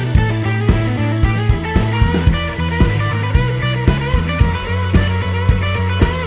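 Background music: a guitar-led band track with a steady drum beat.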